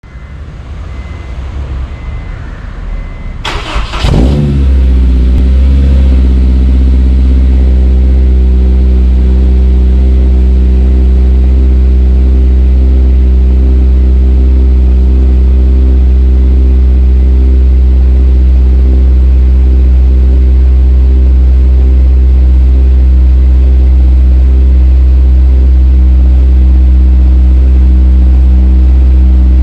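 Honda S2000's four-cylinder engine, breathing through a decat pipe, aftermarket header and Amuse R1 Titan exhaust, being cold-started. The starter cranks unevenly for about three and a half seconds, the engine catches with a loud burst, and it settles into a loud, steady fast idle.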